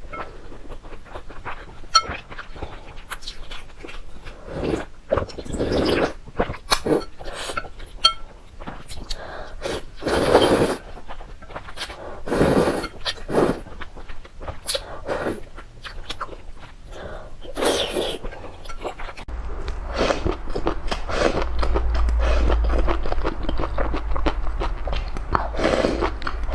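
Close-miked eating of noodles: repeated slurps and chewing with wet mouth clicks. A low rumble joins in about three-quarters of the way through.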